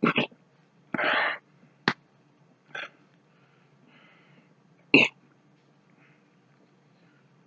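A man's short, sudden throat noises, hiccups and coughs, as he swallows a drink he dislikes. There are about five separate sounds, and the loudest comes about five seconds in.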